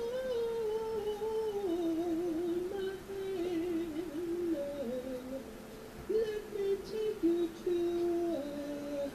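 A woman's solo voice singing a slow melody into a microphone, with long held notes that slide between pitches, heard as played back from a screen in a small room.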